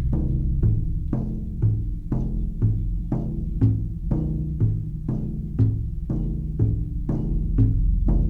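Meditation music: a low drum struck in a steady beat about twice a second, each stroke ringing briefly, over a continuous low drone.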